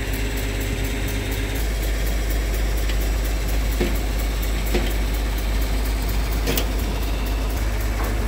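An engine idling steadily, with a few short metal knocks as a steel dome arch is worked into its bracket on top of a shipping container.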